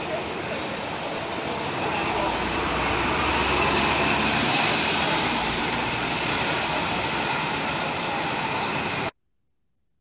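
Single-deck city bus driving past and pulling away, its engine running with a high whine that grows louder to a peak about halfway, then fades. The sound cuts off suddenly near the end.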